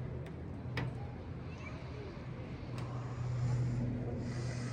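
Low, steady motor hum, such as an engine running, getting louder about three seconds in, with a few faint clicks.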